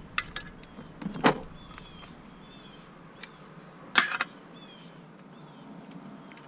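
Scattered clicks and knocks of steering-column parts and tools being handled during reassembly, with a louder knock about a second in and a sharp clatter about four seconds in.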